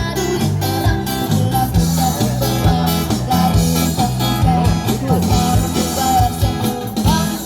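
A live band playing a song with guitar and a steady rhythmic bass line, with a singer's voice carrying the melody.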